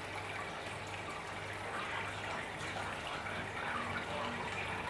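Aquarium water splashing and trickling steadily, with a low pulsing hum underneath.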